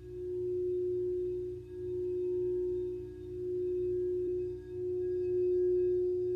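A single sustained, ringing meditation tone with faint higher overtones, swelling and fading about every one and a half seconds: a sound-healing 'grounding frequency'.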